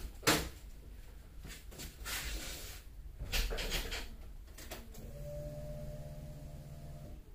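Clicks, knocks and rustling of someone handling things in a car, then a steady electric hum lasting about two seconds near the end.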